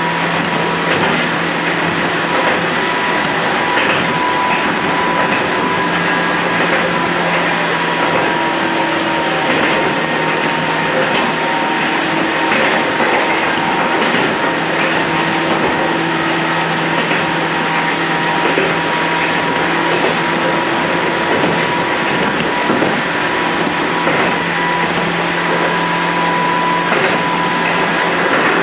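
Toyama Chiho Railway 14760-series electric train running along the line, heard from inside the leading car: a steady rolling rumble of wheels on rail under a motor-and-gear hum that fades out and comes back several times.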